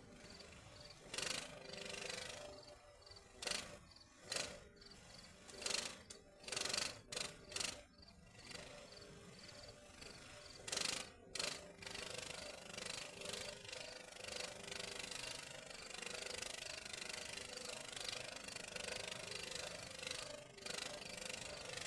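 Arc welder crackling as steel rebar is welded: a series of short arc bursts during the first half, then one longer, steady crackling weld.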